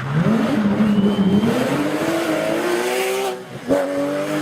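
Race car engine accelerating, its pitch climbing through the revs. There is a brief break about three and a half seconds in as it shifts gear, then it pulls on at a steady pitch.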